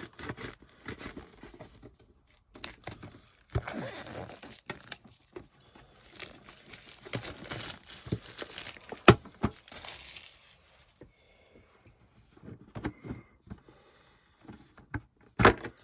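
Plastic shrink-wrap crinkling and tearing as a sealed trading-card tin is unwrapped, with scattered clicks and a few sharp knocks, the loudest about nine seconds in and another near the end.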